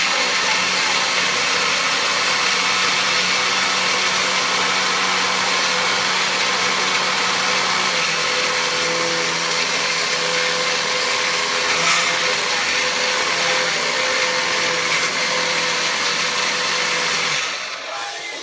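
Electric coffee grinder running steadily at full speed with a loud whirr, cutting off near the end.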